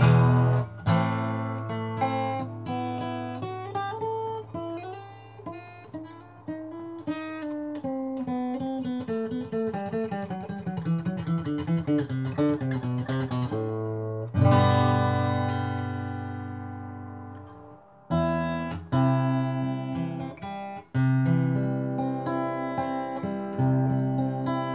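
Acoustic guitar played solo: a run of single picked notes stepping down in pitch, then, about halfway through, a strummed chord left to ring and fade away, followed by more strummed chords near the end.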